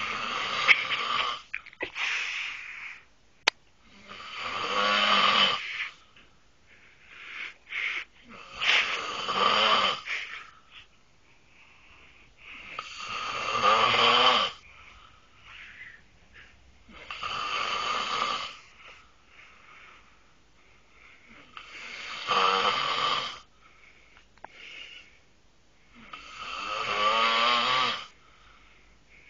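A man snoring loudly in his sleep, with a long snore every four to five seconds, each lasting one to two seconds, and quieter breathing sounds between.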